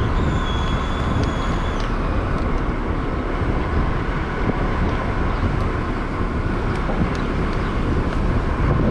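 Payloader engine running steadily while it raises its bucket, with a thin high whine for the first two seconds or so.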